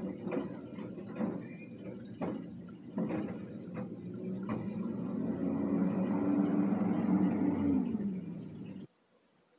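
Front-loader garbage truck at the curb: a few clanks as the emptied cart is set down and the lift arm is stowed, then the truck's engine revs up and runs louder for about four seconds as it pulls away. The sound cuts off suddenly near the end.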